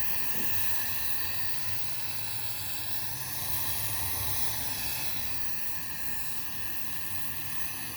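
Direct-fire torch flame burning with a steady hiss and a low rumble underneath, used to heat the seized pins of a washing machine's steel shaft.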